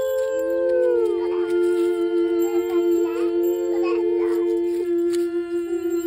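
Two women's voices humming long held notes in harmony, gliding slowly from one pitch to the next.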